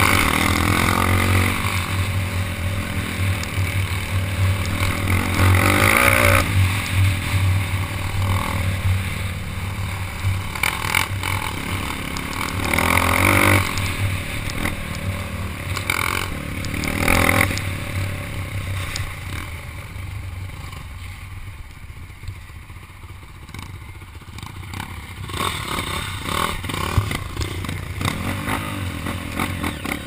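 Dirt bike engine running as it is ridden along a rough dirt trail, revving up several times in the first half, then running quieter for a few seconds past the middle. Clatter and knocks from the bike bouncing over the bumpy ground.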